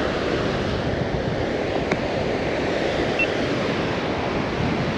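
Surf breaking on a beach with wind blowing across the microphone: a steady, even rushing noise.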